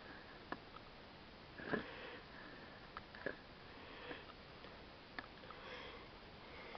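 A person sniffling faintly a few times, with scattered sharp clicks and rustles from a handheld camera being moved about.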